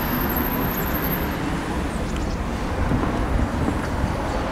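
Steady road traffic noise, an even rumble with no single vehicle standing out.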